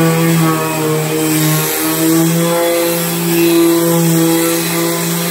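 Electric orbital sander with a dust-extraction hose running steadily on a stained maple cabinet door, its motor hum wavering slightly in pitch. It is taking the old finish down to bare wood so the paint will bond.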